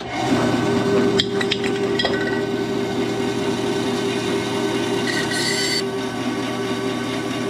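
Wen 10-inch bandsaw running steadily, its motor and blade humming while the blade cuts through a metal spray-paint can, with a brief higher scrape about five seconds in.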